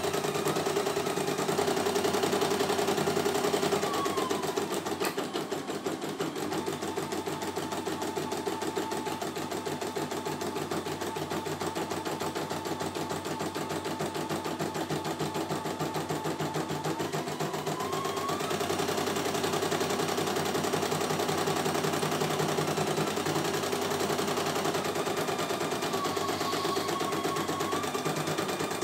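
CNY E900 computerized embroidery machine stitching a design: rapid, steady needle strokes over the whine of its motor, which shifts in pitch a few times.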